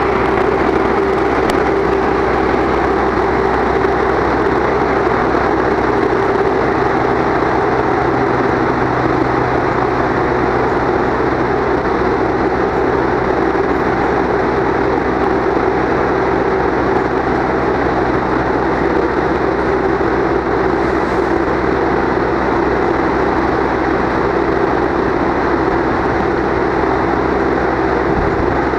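Steady, unchanging drone of a train's diesel engine running, with a constant hum.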